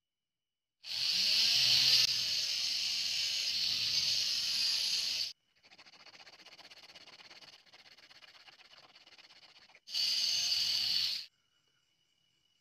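Hand-filing a small PVC part with a flat metal file: a loud steady rasping hiss for about four seconds, then a quieter scratchy stretch of filing for about four seconds, then a second loud hiss about a second long.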